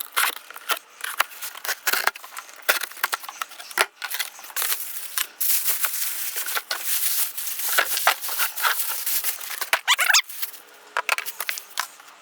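Packaging being handled while a boxed air compressor pump is unpacked: cardboard and packing material rustling, crinkling and tearing in irregular bursts, with a few short squeaks about ten seconds in.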